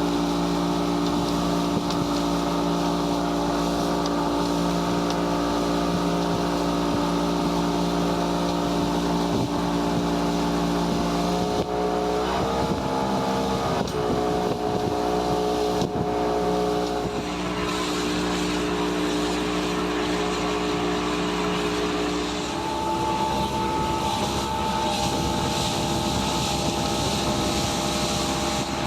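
Motorboat engine running steadily under way, with wind and water hiss above it. Its pitch wavers and shifts about twelve seconds in, then steps up again about ten seconds later.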